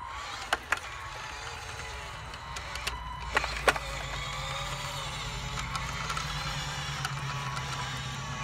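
Radio-controlled Western Star dump truck driving across dirt: a steady low hum with electric motor and gear whine, stepping up a little about three seconds in. A couple of sharp clicks just after the start and two louder knocks about three and a half seconds in.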